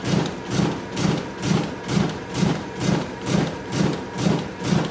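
Riso CZ 180 digital duplicator printing at speed, a steady rhythmic thump-and-clatter about twice a second as each sheet is fed, printed and ejected.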